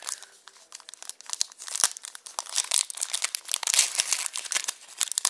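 Foil Pokémon booster pack wrapper crinkling and tearing as hands open it to get at the cards: a dense run of rapid crackles.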